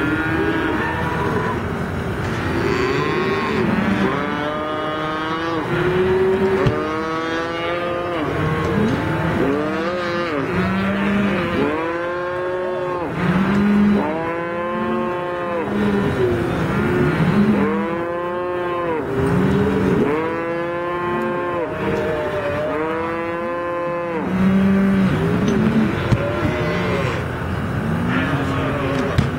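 Cattle in a branding pen bawling over and over. Many calls overlap, and each one rises and falls in pitch.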